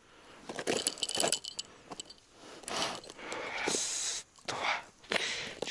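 Irregular crunching and scraping noises in several bursts, with a light metallic jingle about a second in.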